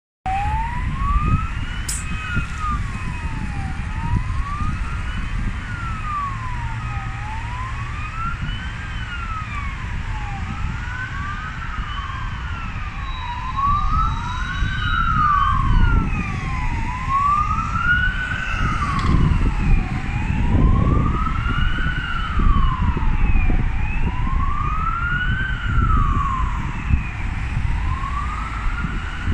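Two ambulance sirens in wail mode, each rising and falling slowly in pitch about every three seconds and out of step with the other, growing clearer and louder from about halfway through as they approach. Road traffic rumbles underneath.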